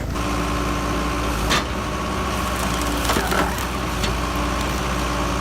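Hydraulic log splitter running with a steady hum while wood cracks and splinters apart, once about a second and a half in and again around three seconds in.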